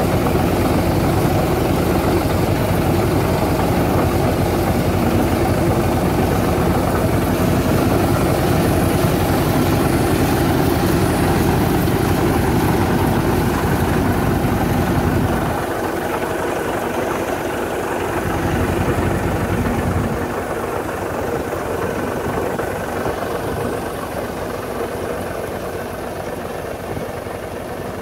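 Tractor-driven Casotti airblast orchard sprayer with an oscillating spray head running steadily, its engine, fan and pump blowing spray. The deep part of the sound drops away about halfway through, and it grows fainter toward the end as the machine moves off down the row.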